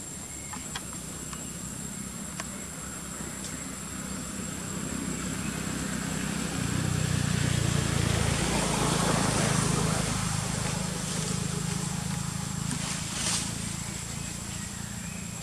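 A low motor hum builds about six seconds in, peaks, and fades away a few seconds later. Under it runs a steady high-pitched whine and a faint outdoor background.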